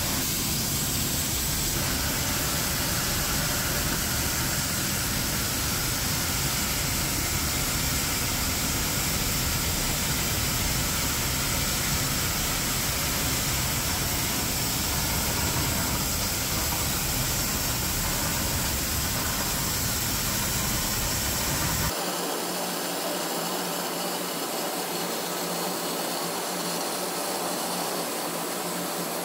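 Oxy-fuel cutting torch on a motorised track carriage, hissing steadily as its flame cuts along the edge of a steel plate. About 22 s in, the low rumble underneath cuts off abruptly and the hiss carries on slightly quieter.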